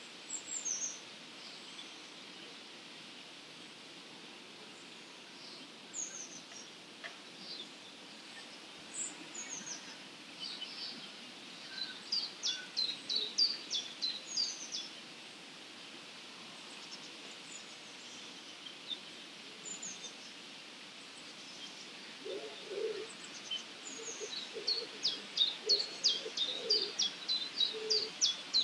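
Dawn chorus of wild songbirds: scattered high chirps and two runs of rapid, high chirping notes, about twelve seconds in and again near the end, over a steady background hiss. A few low calls come near the end.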